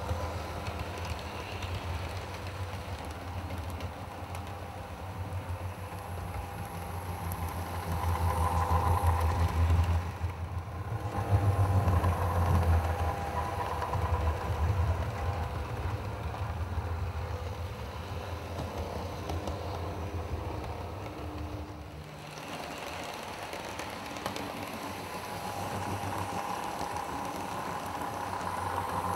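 OO gauge model Class 42 Warship diesel locomotive running with its coaches: a steady motor hum and wheels rumbling on the track. It gets louder as the train passes close, between about 7 and 15 seconds in, and the sound breaks off abruptly and resumes about 10 and 22 seconds in.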